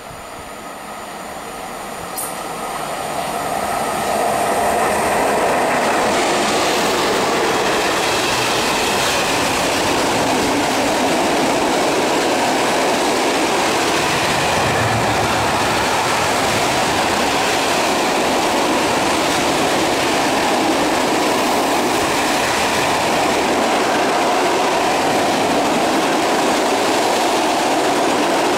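ET42 twin-section electric freight locomotive approaching and running past with a train of open coal wagons. The noise builds over the first four seconds, then holds as a loud, steady rumble of wagon wheels rolling over the track.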